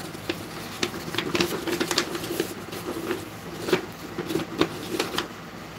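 Paper filter cone rustling and crinkling as it is handled and fitted into a vacuum's canister, with irregular crisp crackles and clicks.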